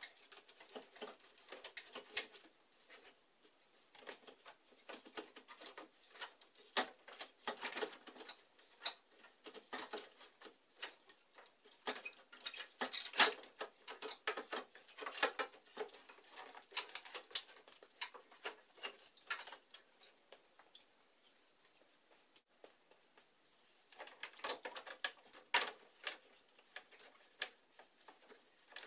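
Irregular light clicks, knocks and scraping of metal and plastic as an intercooler is worked up and out of a Jeep Liberty's front end, past the AC condenser and its lines, with a lull a few seconds before the end.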